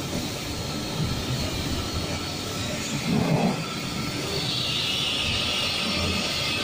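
Automatic train washing plant at work: large rotary brushes spinning against a coach's side while water sprays. A steady noisy wash sound, with a brief louder swell about three seconds in and a stronger hiss in the second half.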